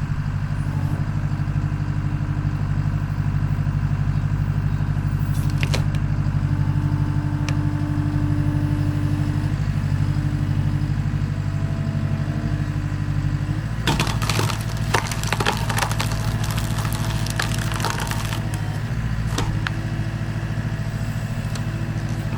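Skid steer engine running steadily while its hydraulics drive an inverted splitter's 12-way wedge down into a firewood round. About 14 s in, the wood cracks and splinters for several seconds as the round splits apart, with a few more cracks near the end.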